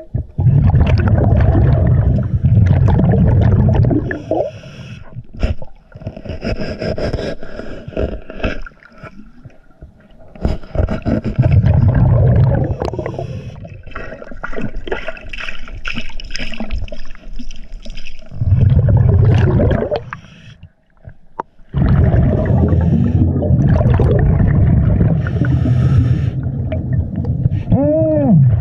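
Scuba regulator heard underwater: repeated bursts of exhaled bubbles rumbling for a few seconds at a time, with quieter breaks between them filled with scattered clicks. A short warbling tone rises and falls near the end.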